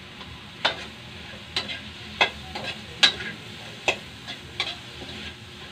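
A utensil scrapes and clinks against a metal wok while stirring shrimp as they fry, about seven irregular scrapes. Under them runs a steady low sizzle.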